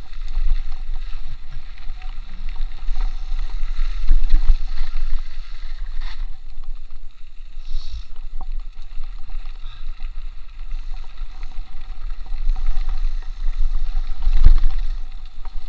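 Low rumbling wind buffeting on the microphone and the rattle of a mountain bike running fast down a rough dirt trail, with a few knocks over bumps, the heaviest about fourteen seconds in.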